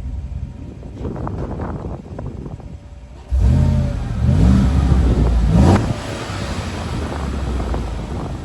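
2015 Chevrolet Silverado's 5.3-litre V8 exhaust, now through a Cherry Bomb Salute muffler, idling and then revved in a few quick blips from about three seconds in before settling back to idle. The tone is low and mild, basically stock in loudness, with wind buffeting the microphone.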